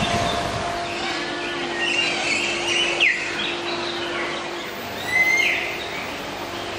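Birds chirping: scattered short chirps and quick sweeping calls, a louder falling call about three seconds in and a rising one about five seconds in, over a faint steady hum.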